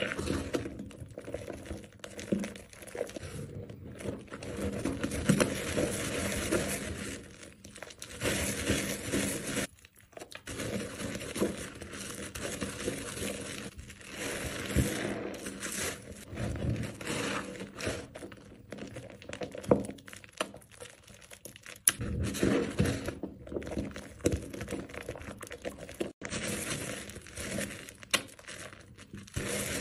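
Hands squeezing and lathering water-soaked, mushy soap bars on a scrub sponge: wet squishing of thick foam in irregular bursts, with a few brief pauses.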